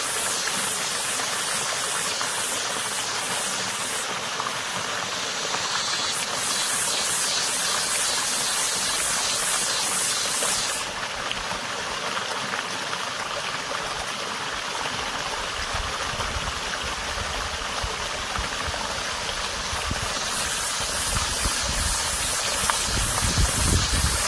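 Small stream running steadily, with cicadas buzzing in a high drone that pulses rapidly in some stretches and holds steady in others. A low rumble comes in past the middle.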